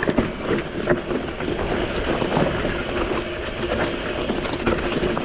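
Mountain bike riding downhill over loose volcanic rock: tyres crunching and sliding over the rubble, with a constant rattle and frequent sharp knocks from the bike.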